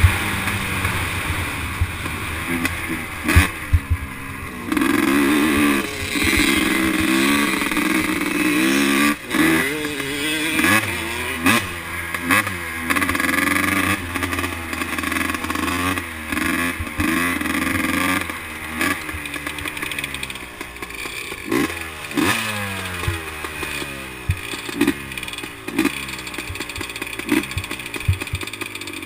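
Yamaha Blaster's 200cc two-stroke single-cylinder engine revving hard under full throttle, its pitch climbing and dropping as it runs up through the gears, with wind rushing across the helmet-mounted microphone. In the second half the engine note rises and falls in quicker, shorter swells as the throttle is opened and backed off.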